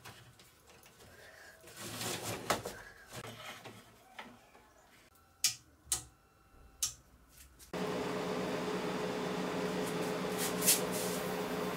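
Metal telescopic drawer slides of a pull-out table being handled, with rustling and three sharp metallic clicks just past the middle. About two-thirds of the way through, a steady mechanical hum starts abruptly and runs on.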